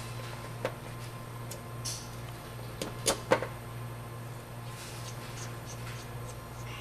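A few small clicks and taps of a hex screwdriver working screws into a carbon-fibre quadcopter frame, the sharpest pair about three seconds in, over a steady low hum.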